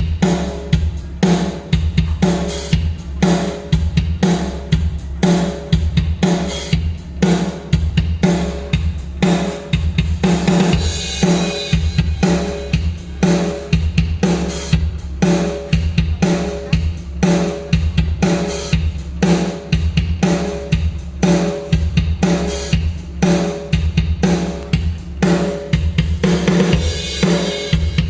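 Recorded drum-kit backing track at 120 beats per minute in 4/4: kick, snare and hi-hat in a steady beat of about two beats a second, with cymbal crashes about ten seconds in and again near the end.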